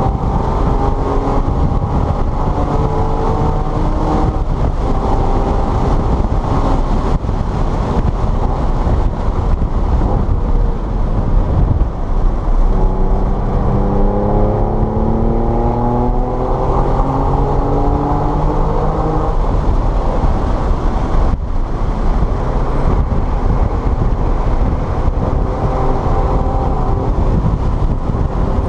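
Car engine running hard on a racetrack, under constant road and tyre noise. Its pitch climbs steadily through a gear over several seconds, and a brief drop near the three-quarter mark is a gear change or lift.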